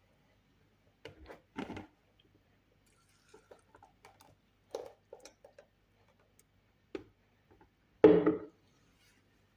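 Kitchenware being handled: scattered light knocks and clicks, with a louder clatter lasting about half a second near the end.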